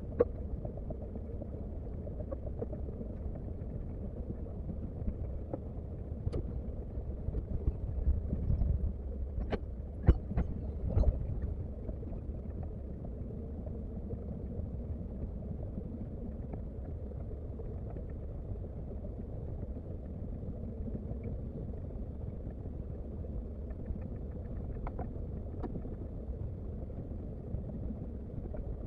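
Komatsu excavator's diesel engine running steadily with a low rumble. It swells about eight seconds in, with a few sharp knocks over the next few seconds.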